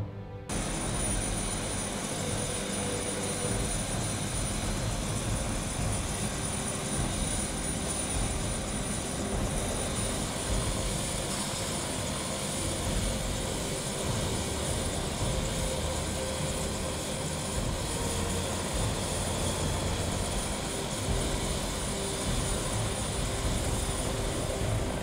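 Medical helicopter's turbine engine and rotor running steadily, with a high whine. It starts suddenly about half a second in.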